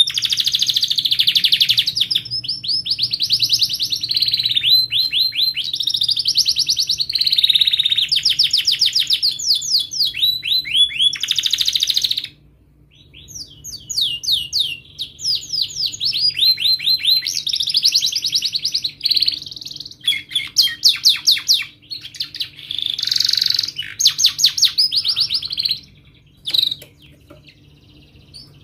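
Domestic canary singing long, fast trills and rolls of rapidly repeated high notes. The song breaks off briefly about twelve seconds in, starts again, and trails off into a few scattered chirps near the end.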